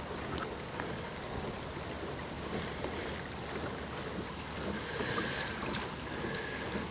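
Boat motor running steadily while cruising, mixed with water noise and wind on the microphone; the hiss swells a little about five seconds in.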